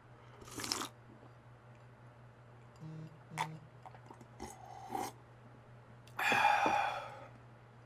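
A man drinking from a small bowl: a few short, soft sipping and swallowing sounds, then a long breathy exhale about six seconds in.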